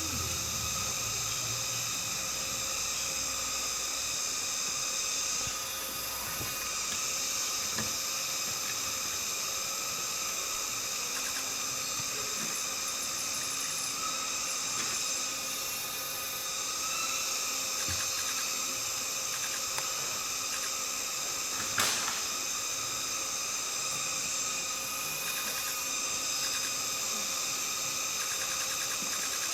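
Cicadas singing in a steady, dense chorus that swells and fades slightly every several seconds, with a single sharp knock about three-quarters of the way through.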